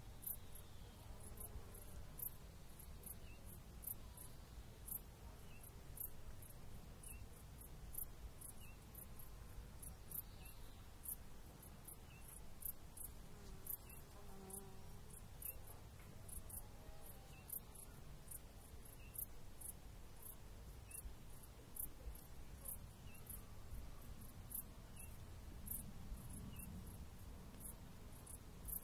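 Faint, very high-pitched insect chirps repeating about twice a second, over a low steady wind rumble.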